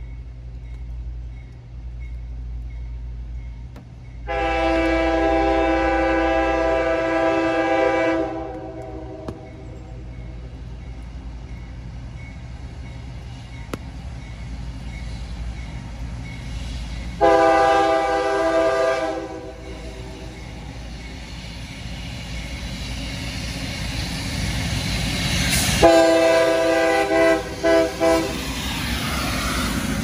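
Approaching CSX freight train's diesel locomotive sounding its air horn: a long blast about four seconds in, a shorter one midway, then several short broken blasts near the end. The engines' rumble grows louder as the locomotives come up and pass close by.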